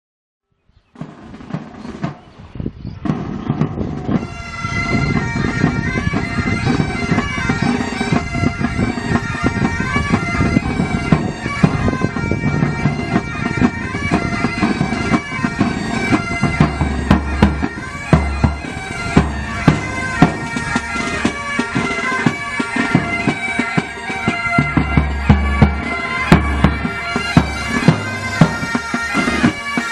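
Military pipe band: bagpipes playing a tune over steady drones, with drum beats. It comes in about a second in and builds to full volume by about four seconds.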